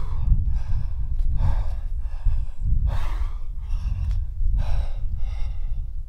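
A climber breathing hard with effort while pulling through a hard finger-crack climb: quick, forceful exhalations and gasps, about one every half second to a second, over a steady low rumble.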